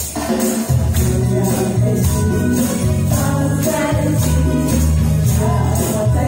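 Two women singing a pop song into microphones over a backing track with a steady beat and bass, played through a PA. A tambourine-like jingle sits on the beat, and the voices come in more strongly about halfway through.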